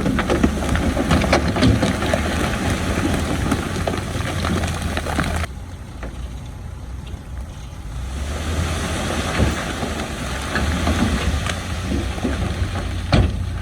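Heavy construction machinery's diesel engine running steadily, with rattling and knocking over it. The sound drops abruptly about five and a half seconds in, comes back a couple of seconds later, and a sharp knock stands out near the end.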